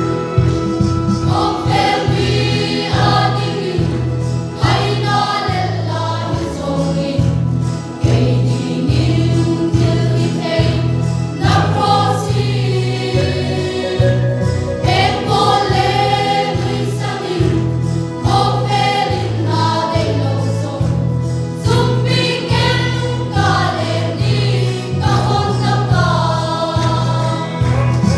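Mixed choir of young women and men singing a Christian song over instrumental accompaniment with a steady low pulse.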